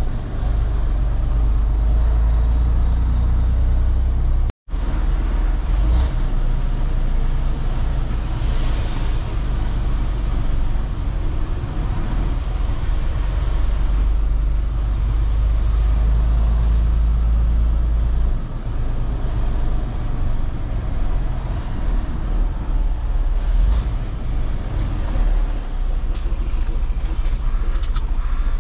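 Semi-truck diesel engine running at low speed, heard from inside the cab as a steady deep rumble that eases off about two-thirds of the way through. There is a split-second gap in the sound about four and a half seconds in.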